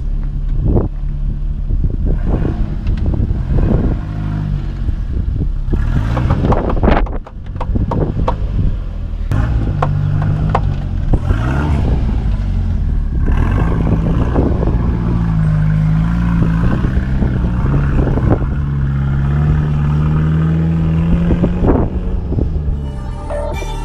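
Engine of a lifted 4x4 Toyota van pulling under load as it crawls over rock, its note rising and falling with the throttle. Knocks and clatters from the tyres and suspension on the rock come through it.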